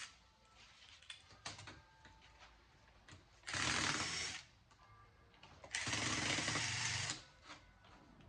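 Power drill running in two short bursts, the second longer at over a second, as parts are taken off a circuit board for scrap. Small clicks and handling knocks come between the bursts.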